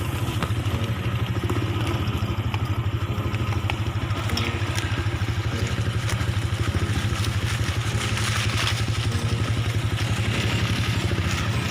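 Motorcycle engine running steadily with an even, rapid firing pulse.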